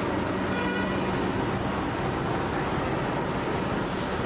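Steady city street traffic noise: the mixed hum of cars and taxis moving through a busy intersection.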